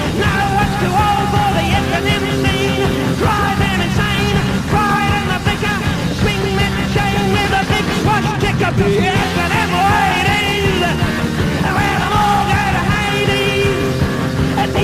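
Loud punk-rock style band music playing with no sung words.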